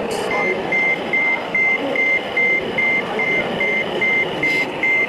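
Reversing beeper of a radio-controlled truck's sound module, a steady high beep repeating about two and a half times a second, over steady background noise.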